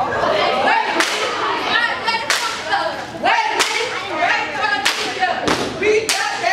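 Step routine by a girls' group: sharp claps and foot stomps in unison, roughly one every second and a half and closer together near the end, with the group's voices chanting in between.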